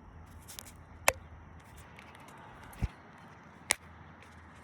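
A few isolated sharp knocks and clicks, one to two seconds apart: a couple of hard taps with a brief ring and one duller low thump, over faint background noise.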